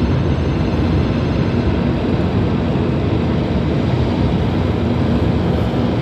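Steady road and wind noise of a car travelling at highway speed, heard from inside the car: a constant low rumble with hiss.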